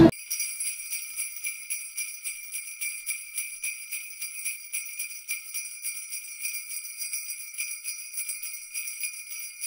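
Jingle bells shaken in a quick, steady rhythm, heard thin and tinny with no low end at all, as a backing track laid over the footage.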